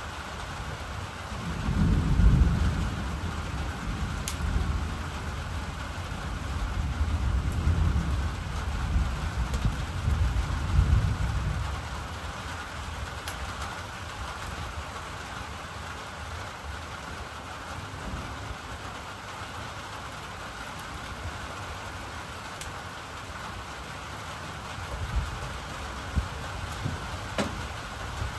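Steady rain falling, with a long roll of thunder rumbling from about two seconds in to about twelve seconds in, loudest near its start and swelling again near its end. A few faint ticks sound over the rain.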